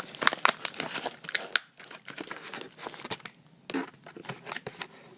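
Plastic packaging crinkling and crackling as it is handled, in irregular bursts with a couple of short pauses.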